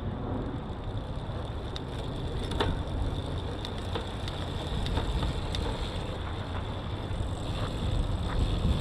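Bicycle drivetrain turning as the pedals are worked: the chain running over the cassette and rear derailleur with a few sharp clicks, the derailleur freshly adjusted, under a steady hiss of wind and outdoor noise.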